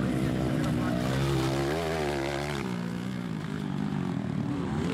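Engines of 230cc four-stroke single-cylinder trail bikes racing, revving up and down with the pitch rising and falling, most sharply about two seconds in.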